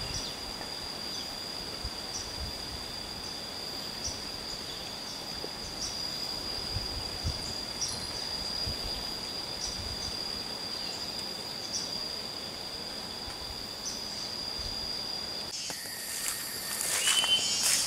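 Insects chirping as a steady high-pitched drone, with faint regular ticks over it. Near the end this gives way to louder rustling and clicking.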